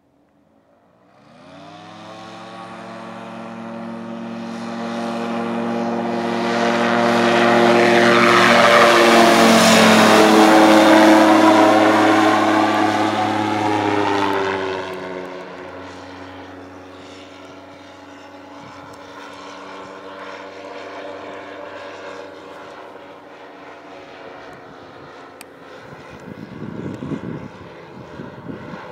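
Rotax 912 four-cylinder engine and three-bladed propeller of a light-sport airplane at full power on takeoff, growing louder as it comes toward and past, with a drop in pitch as it goes by. It then settles into a steadier, quieter drone as the airplane flies on.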